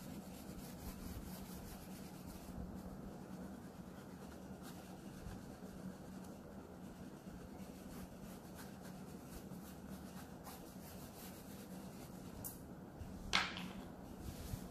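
Faint, steady scratching and rubbing of an oil pastel stroked back and forth across paper, blending colour into the drawing, over a faint steady hum. A brief, sharper sound stands out about thirteen seconds in.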